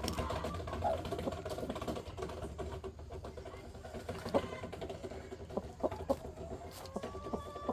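Chickens clucking among scattered short clicks and taps, with a longer drawn-out hen call starting near the end.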